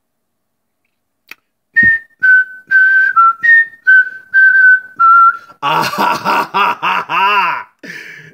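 A person whistling a short tune of about nine clear notes, some higher and some lower. Near the end a loud voice takes over, its pitch sliding up and down.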